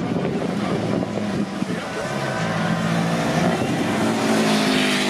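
Rally car engine running hard on a dirt stage, revving, its pitch climbing near the end.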